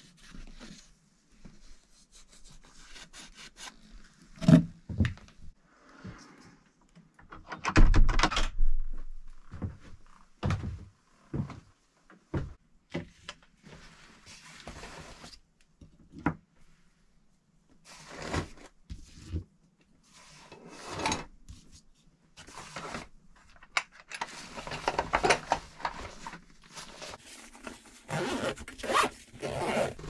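Close handling sounds of gear: bootlaces pulled and rubbed, then a backpack being packed and zipped, with fabric rustle and items knocked down on a table. A few loud thuds stand out early on.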